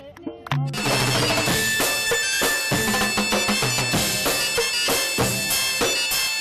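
Loud music: a reedy wind instrument holding steady droning tones over fast, busy drumming. It comes in about a second in, after a few sparse rhythmic strokes.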